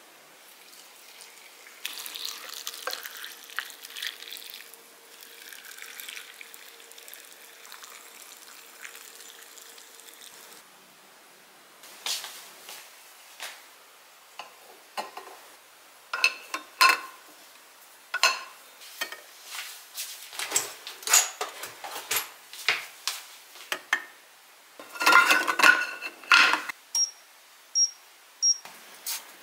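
Hot pickling brine poured from a pot for several seconds, then eggs clinking one by one against a stainless steel pot and a brief rush of water. Near the end, three short high beeps from an induction cooktop's touch controls.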